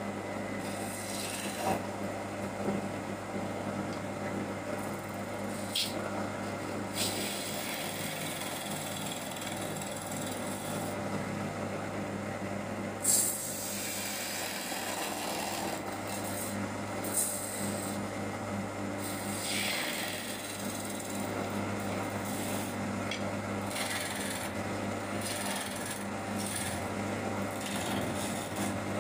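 Hand-held turning chisel scraping and cutting a spinning wooden workpiece on a lathe in irregular strokes, with a louder scrape about halfway through. Under it runs the steady hum of the lathe's motor.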